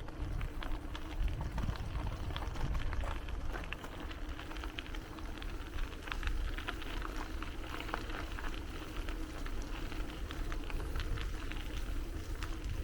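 A bicycle rolling along a park path: a dense run of small crackles and ticks from the tyres and bike over a steady low rumble.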